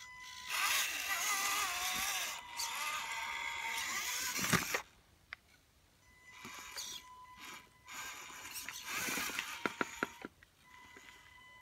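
Radio-controlled scale rock crawler driven in three short bursts: whirring drivetrain over a thin steady whine, with ticks and scrapes as the tyres climb rock, and one loud knock about four and a half seconds in.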